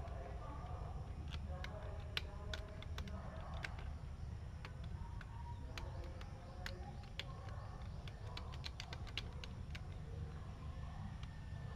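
Scattered light clicks at irregular spacing over a steady low hum.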